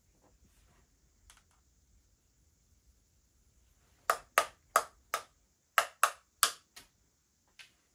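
A quick, uneven run of about nine sharp taps or clicks on something hard, starting about four seconds in and lasting a little over three seconds.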